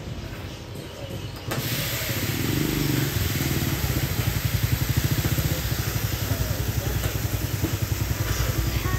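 Bird seed poured from a raised bucket in a steady stream into a plastic bucket, winnowed in front of a fan. A continuous grainy hiss starts abruptly about a second and a half in, over a low rumble.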